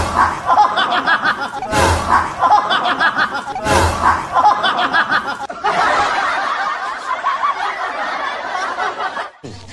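People laughing, broken by sharp noises at the start and about two and four seconds in.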